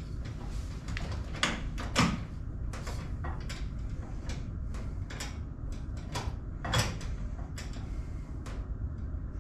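Irregular clicks and knocks of a home-made metal-tubing transducer bracket being moved about in its pinned mount on a jon boat's bow, with louder knocks about two seconds in and near seven seconds. The knocking comes from play in the bracket, which still needs a shim to tighten it.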